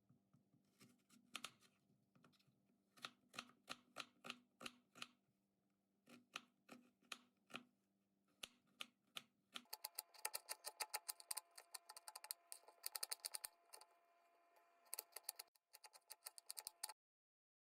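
Knife cutting on a cutting board: sharp taps about three a second, turning faster and denser from about ten seconds in, as when chopping finely.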